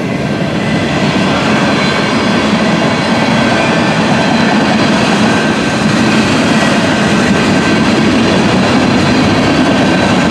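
CN freight train's cars rolling past, a steady, loud noise of wheels on rail that builds over the first second and then holds.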